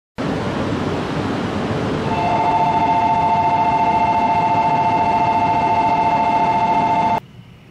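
Jōetsu Shinkansen train passing through the station at high speed: loud rushing noise, with a steady two-note tone joining about two seconds in. The sound cuts off abruptly near the end.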